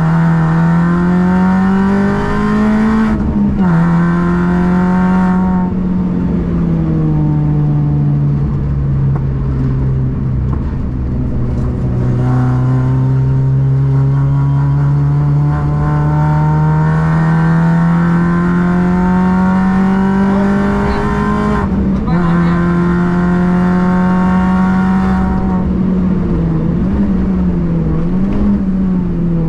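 A car's engine under way on a race circuit, its note climbing through the revs and dropping sharply at gear changes about 3 seconds in and again around 22 seconds. In between it falls back and wavers as the throttle is eased, then builds again in long pulls.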